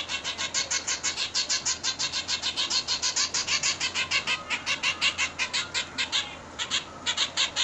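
Zebra finch fledgling, 22 days old, chirping in a rapid run of short high calls, about six a second, with a brief break about six seconds in.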